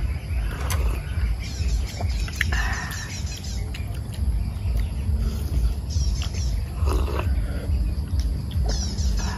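Animal calls in several separate bursts over a steady low rumble.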